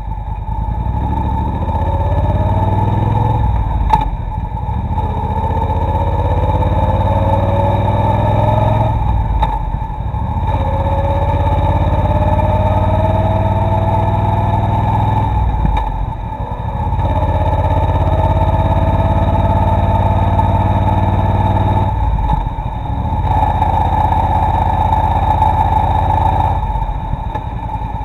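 Motorcycle engine running under way, heard from a bike-mounted dashcam. Its pitch climbs steadily several times, each climb broken by a brief drop, as with upshifts while accelerating.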